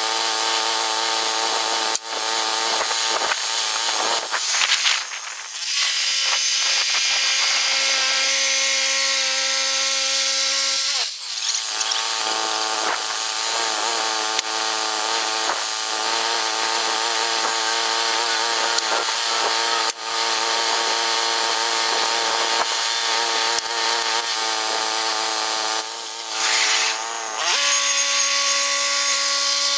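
Woodland Mills HM122 portable bandsaw mill running, its gas engine under steady load while the band blade cuts through a large pine log. The engine note changes briefly about eight seconds in and again near the end.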